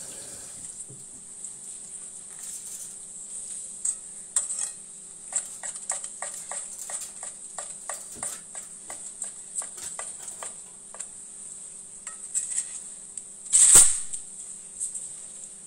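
Knife cutting through crisp-skinned roast Peking duck on a wooden cutting board: a run of short, crunchy cuts about two to three a second, then one loud knock near the end. A steady hum and hiss lie underneath.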